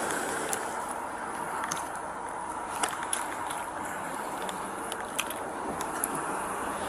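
Steady outdoor background hiss on a body-worn camera microphone, with a dozen or so faint scattered clicks and rustles as the wearer shifts and turns.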